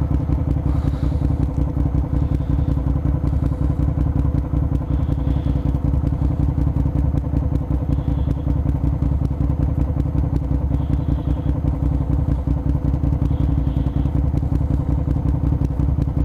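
A 2009 Suzuki SV650S's V-twin engine running at a steady, unchanging speed.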